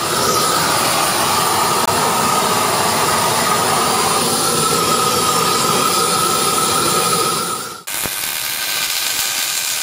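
Propane torch flame running steadily against a cast-iron winch drum, a continuous rushing hiss with a faint steady whistle. About eight seconds in it cuts off abruptly and is replaced by the steady crackling hiss of MIG brazing.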